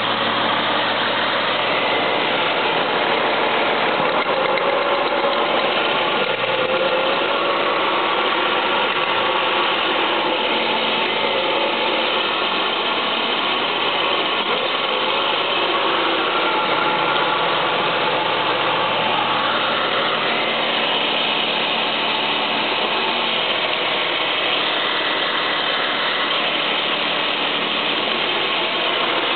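Ford Mustang 3.8-litre V6 engine running steadily with a metallic clacking, metal hitting metal. The owner thinks one noise comes from the water pump and that the clacking began after headers were fitted.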